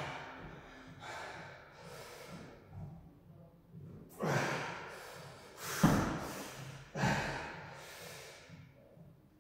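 A man breathing hard under exertion during dumbbell floor presses: a sharp breath out about every second, louder in the second half.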